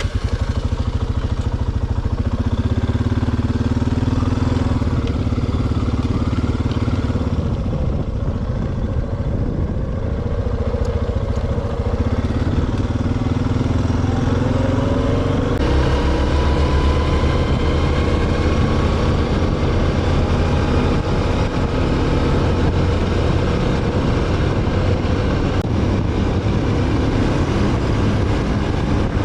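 A motor vehicle's engine running steadily while driving, with its pitch drifting up and down as the speed changes.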